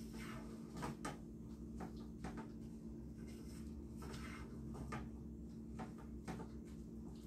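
Wooden spoon stirring and scraping pork in a saucepan: soft, irregular scrapes and light knocks over a steady low hum.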